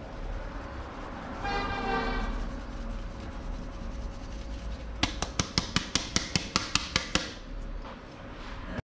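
Street background noise with a vehicle horn sounding once for about a second. A few seconds later comes a quick run of about a dozen sharp knocks, roughly five a second, lasting about two seconds.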